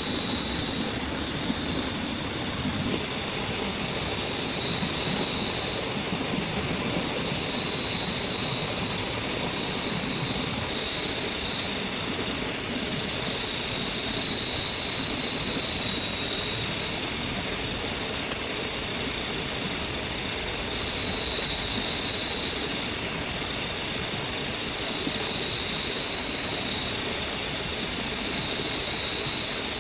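Heavy rain falling steadily on a tent and plastic tarp, an unbroken hiss with a thin, steady high whine above it.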